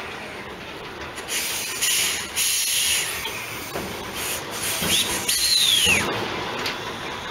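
Narrow-gauge steam locomotive letting off steam in hissing bursts, with a brief falling squeal about five seconds in.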